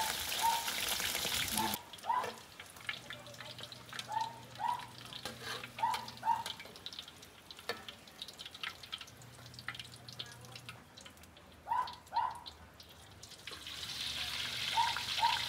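Pork intestine deep-frying in hot oil: a steady sizzle that drops away sharply about two seconds in. A much quieter stretch follows, with scattered short chirp-like pops, and the sizzle swells back near the end.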